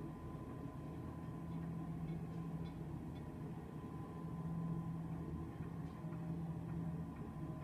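A steady low mechanical hum with a faint constant higher tone above it.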